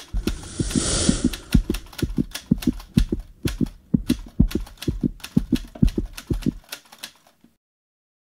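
Animated-logo sound effects: a quick, even run of typewriter-like clicks with thuds beneath them, about four or five a second, with a whoosh near the start. It stops shortly before the end.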